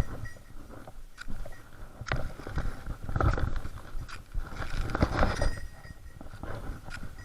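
Irregular scuffing and knocking steps, like a hiker's footsteps on rough ground, with the loudest steps a little after two seconds in, around three seconds and around five seconds.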